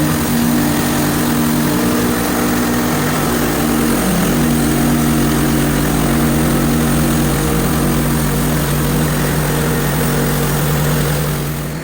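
Gas engine of a Hud-son HFE30 portable bandsaw mill running steadily at a constant pitch, with a brief wobble about four seconds in, then easing off just before the end.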